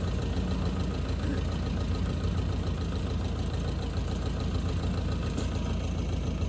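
Rice combine harvester's diesel engine running steadily, a constant low drone with no change in pace.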